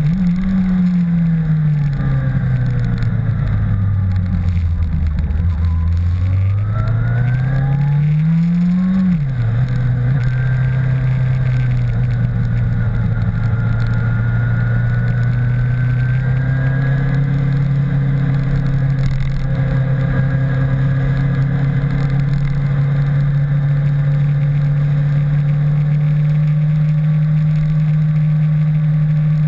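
Motorcycle engine heard from a camera mounted on the bike, under constant wind rush. The engine note falls as the bike slows over the first few seconds, rises again as it accelerates, drops suddenly at a gear change about nine seconds in, then runs steadily with slowly rising pitch as the bike gathers speed.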